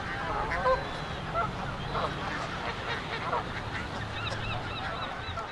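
A flock of geese and ducks on open water, calling steadily: many overlapping honks and quacks, with a quick run of short calls about four seconds in. A low steady rumble runs underneath.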